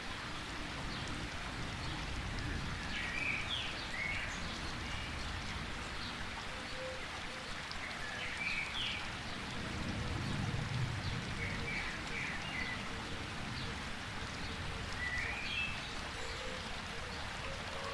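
Steady rain falling, with short clusters of high bird chirps every few seconds.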